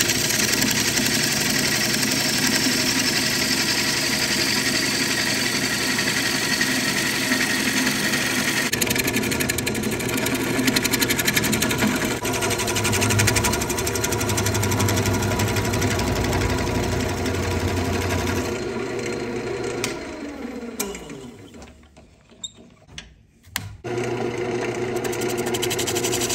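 Wood lathe running while a bowl gouge cuts the inside of a green ambrosia maple bowl, a steady motor hum under the hiss and chatter of the cut. About 20 seconds in the sound dies away as the lathe winds down, with a few sharp clicks in the quiet. Near the end the running and cutting start again.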